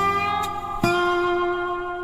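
Background music: a guitar playing slow single notes that ring out and fade, a new note struck just under a second in.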